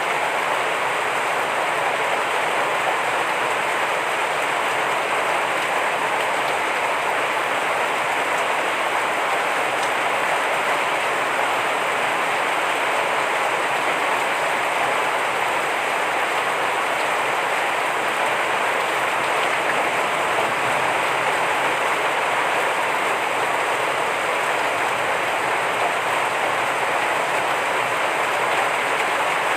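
Heavy rain falling steadily, a dense even hiss with no separate drops standing out.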